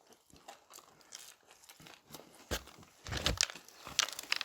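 Paper packaging crinkling, with scattered crisp clicks and crunches, as fried chicken pieces are handled. It grows busier from about halfway through.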